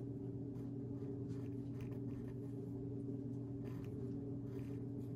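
A pencil drawing on paper in faint, short scratchy strokes over a steady low hum.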